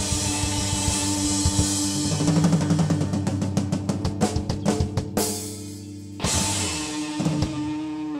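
Live rock band (drum kit, electric guitars and bass) playing the end of its closing song. The drums play a run of hits that come faster and faster over a held guitar note, then stop suddenly. A final crash hit about six seconds in follows, with the guitars and bass ringing out and fading near the end.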